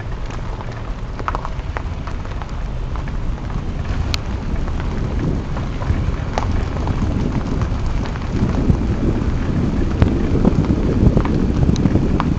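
Low rumble of wind and road noise from a moving vehicle, growing stronger about eight seconds in, with a few faint clicks.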